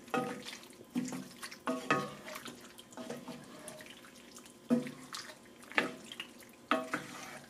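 Penne and meatballs being stirred through a thick creamy sauce in a pan: short wet squelches every second or so.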